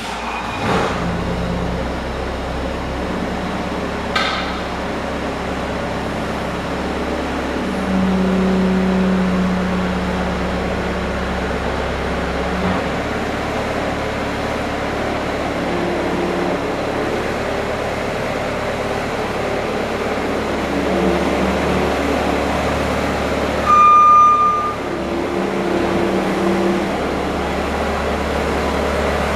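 Bobcat skid-steer loader running steadily, its engine note shifting up and down now and then as it is driven. A short high beep sounds about three quarters of the way through.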